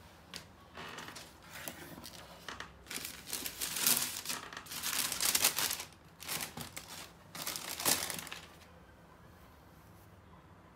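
Tissue paper crinkling and rustling in a run of bursts as a cardboard shoebox is opened and the wrapping pulled back from the sneakers. The rustling stops about eight and a half seconds in.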